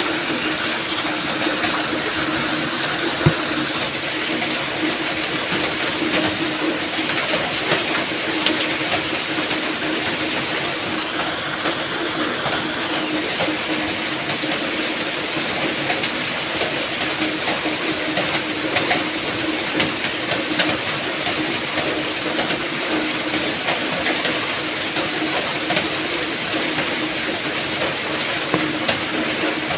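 Steady heavy rain: a dense, even hiss with a faint low hum underneath and a few sharper drop ticks.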